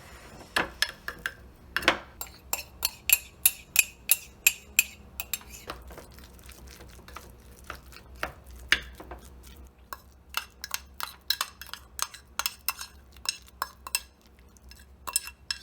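Cutlery clinking and tapping against a dish or bowl: a long run of sharp, irregular clinks, thicker in the first few seconds and sparser later, as food is stirred or handled.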